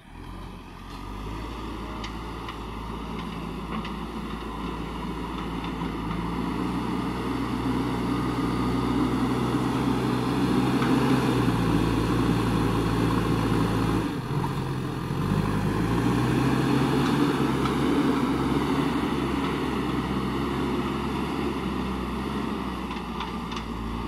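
JCB 3DX backhoe loader's diesel engine working under load as the front bucket pushes and carries soil. The engine note swells over the first half, dips briefly about fourteen seconds in, then picks up again.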